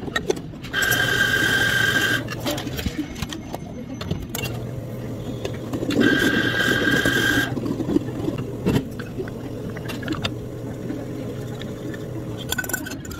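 A small electric machine whirs twice, each time for about a second and a half, over a steady low hum of cafe equipment, with clinks of cups and utensils in between.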